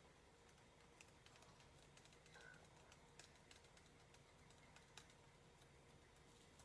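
Near silence, with faint, irregular light clicks and taps from small handling of a glitter tumbler over a paper plate.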